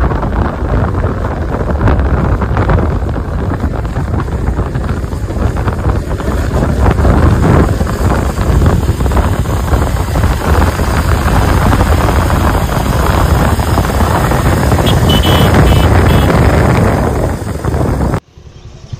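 Wind rushing and buffeting on the microphone of a moving motorcycle, over the bike's engine and road noise. It cuts off suddenly near the end.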